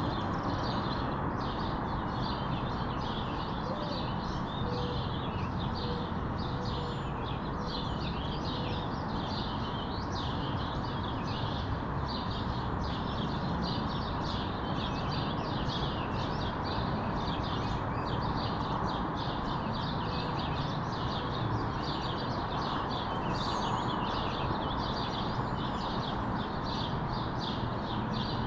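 Many small birds chirping in quick, overlapping short notes, over a steady low background rush of neighbourhood noise.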